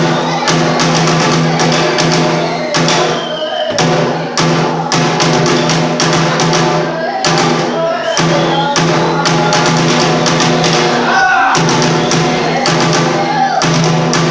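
Bitchu kagura accompaniment: a drum struck again and again over a sustained, steady tone, with a sliding melodic line or chanting voice above it.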